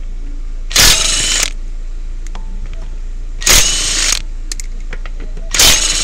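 Red cordless impact wrench hammering lug nuts loose on a car wheel in three short bursts, about a second in, near the middle and near the end.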